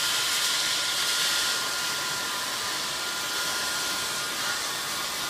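Electric heat gun running steadily: an even rush of blown air with a faint steady whine.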